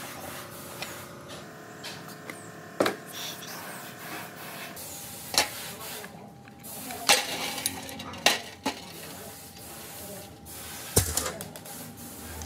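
Steel engine parts clinking and tapping as gloved hands work on the timing gears, with a few sharp metallic knocks spread through.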